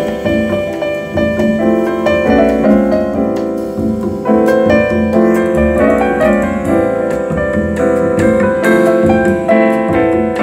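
Recorded piano music playing loudly through a pair of small Denon SC-S81 bookshelf speakers, each with a 4-inch woofer and a soft-dome tweeter, heard in the room as part of a listening test.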